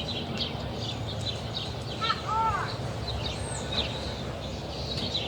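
Birds chirping and calling: many short high chirps throughout, with a couple of lower arched whistles about two seconds in. A steady low background noise runs underneath.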